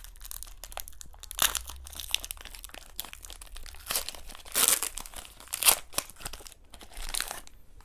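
Foil Pokémon booster pack wrapper crinkling and being torn open, in irregular rustling bursts with the loudest a little past the middle.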